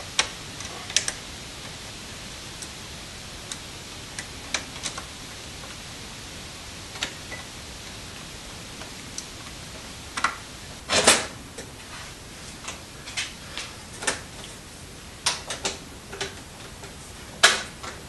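Scattered small metal clicks and taps as a screwdriver and a black wire are worked into a breaker terminal in an open electrical panel, over a steady hiss. A louder, longer clatter comes about eleven seconds in, and a sharp knock near the end as the metal panel cover is fitted.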